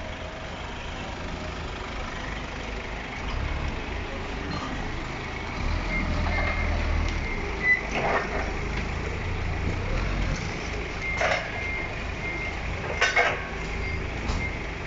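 Truck engine running low and steady while its reversing alarm beeps in short, evenly spaced pips, with a few sharp knocks about halfway and near the end.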